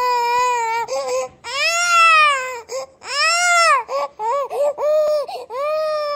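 A baby crying hard: long wails that arch up and then down in pitch, two big ones in the first half, then a run of short, broken sobbing cries and a long wail that slowly falls in pitch near the end.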